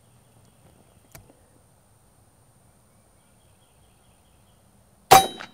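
A single shot from an AirForce Texan .257 precharged pneumatic air rifle: a sharp, loud report with a short ring, coming suddenly near the end after a quiet spell.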